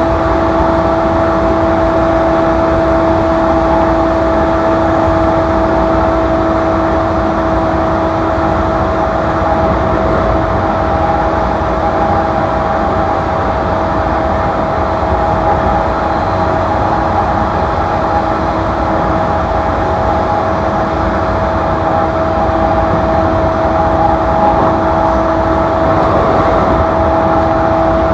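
Running noise of a JR E235 series electric train heard from inside the car: a steady rumble of wheels on rail with a hum held at one pitch, as the train runs at an even speed.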